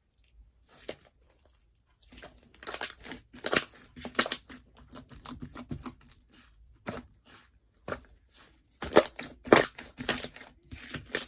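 Slime being squished and stretched by hand, giving irregular crackling, crinkly pops and tears; the loudest bursts come about nine to ten seconds in.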